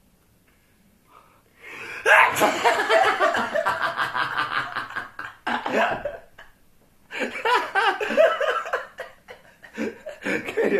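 Hearty laughter in two long fits, starting abruptly about two seconds in and again after a brief pause about seven seconds in.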